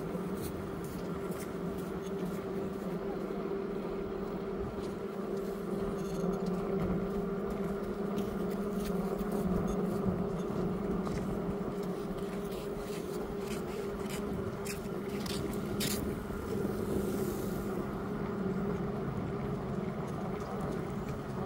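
A small motor running steadily at one unchanging pitch, a low hum with a whine above it, over a steady hiss, with scattered light clicks and rattles throughout.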